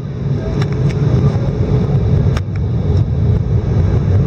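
Airbus A319 cabin noise in flight: a steady, loud low rumble of engines and airflow, with a few light clicks about half a second in and around two and a half seconds in.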